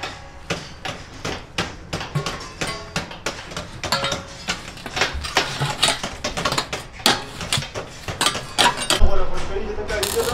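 Irregular knocks and taps of a stick against the thin steel walls of a double-walled tandoor as insulation is packed down between them. Near the end a low steady buzz of arc welding starts.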